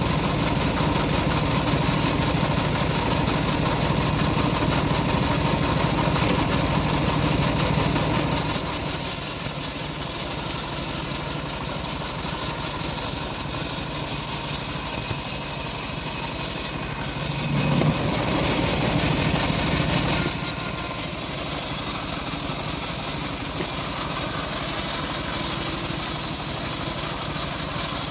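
Stihl MS 381 two-stroke chainsaw running hard while cutting through timber. It drops back briefly about two-thirds of the way in, then revs up and cuts again.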